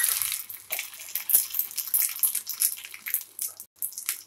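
Cumin and mustard seeds sizzling and crackling in hot oil in a small tempering pan, with many sharp pops. The sizzle is densest at first and thins to scattered pops toward the end.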